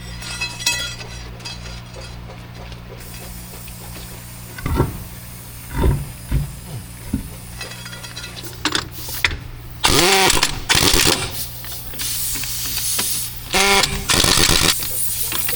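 A steady low machine hum, with scattered knocks and two loud bursts of metal working about two-thirds of the way through and near the end, each sliding up and down in pitch.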